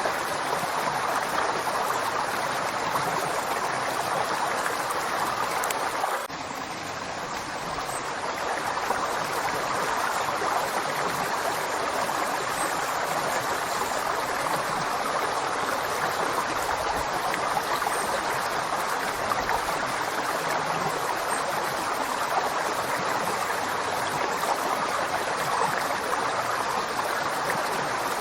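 River water flowing steadily, a continuous rushing. The level dips slightly for a moment about six seconds in.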